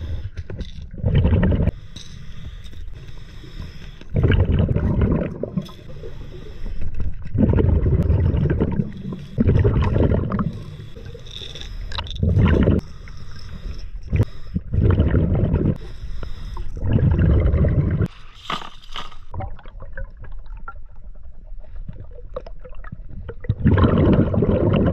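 A scuba diver breathing through a regulator underwater: exhaled bubbles rumble and gurgle past the camera in loud bursts every few seconds, with quieter stretches between. A few sharp clicks come a little past the middle.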